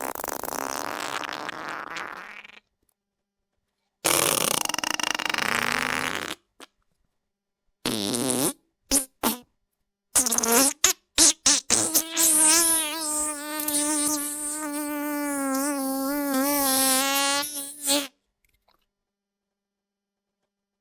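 A run of separate cartoon sound effects with dead silence between them: two noisy blasts, then a quick cluster of short bursts, then a long wavering buzz lasting about eight seconds that cuts off suddenly.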